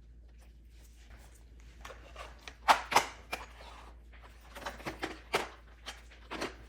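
Scattered plastic clicks and knocks from Roomba 649 parts being handled and fitted, in a few quick clusters, the loudest a pair of sharp snaps about three seconds in.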